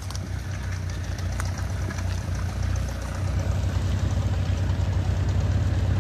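Half-track tractor's engine running under load as it drags a chained log through brush, a steady low pulsing that grows louder about halfway through.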